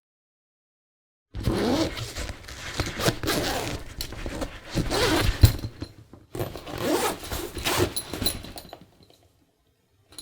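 A zipper being zipped open and shut over and over, in quick rasping strokes. The strokes start about a second and a half in, pause briefly around the middle, and one more short zip comes right at the end.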